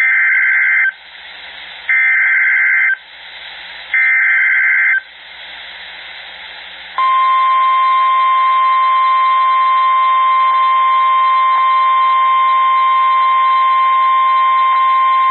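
NOAA Weather Radio Emergency Alert System (SAME) alert. It begins with three one-second bursts of the warbling header data tones, each followed by a second of hiss. About seven seconds in, the steady 1050 Hz warning alarm tone starts and holds. Together they are the signal that opens a warning broadcast, here a severe thunderstorm warning.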